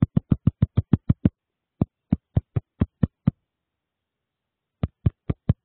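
A rapid series of short tap sounds from tapping the coin in a phone tap-to-mine game. They start at about seven a second, slow down and grow uneven, stop for about a second and a half, then come quickly again near the end.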